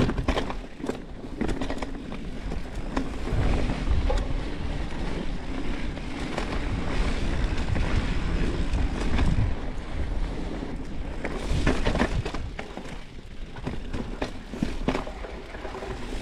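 Mountain bike riding over a dirt trail: tyre noise on the dirt with frequent short rattles and clicks from the bike over bumps, and wind buffeting the microphone.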